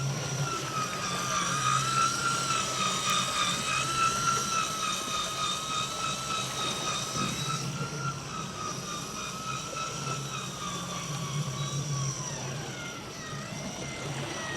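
Steady motor whine of a fishing reel winding line up from deep water, over a low hum. The pitch wavers slightly and sags lower near the end.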